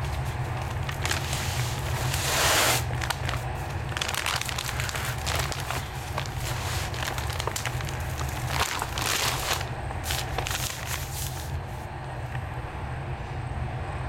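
Heavy paper sack of grout being handled, its paper crinkling and rustling in irregular spells, over a steady low rumble.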